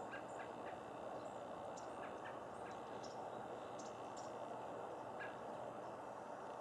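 Birds giving scattered short, high chirps over a steady background hiss of outdoor ambience.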